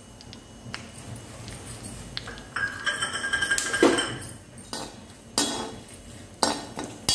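A slotted metal spatula clinking and scraping against a metal kadhai several times in the second half, over a faint sizzle of whole spices frying in hot oil.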